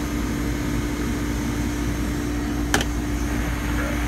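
Refrigeration condensing unit of a three-door reach-in refrigerator running steadily: the 1/2 hp compressor and condenser fan give a steady hum. The compressor is running normally on a newly fitted start kit with a freshly cleaned condenser. A single sharp click sounds near the end.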